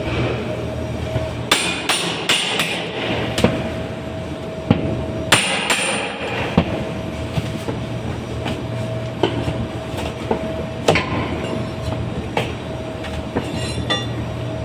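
Hammer blows knocking out GIB plasterboard during demolition: sharp, irregular knocks and cracks, coming in quick clusters in the first half, then single blows about a second apart.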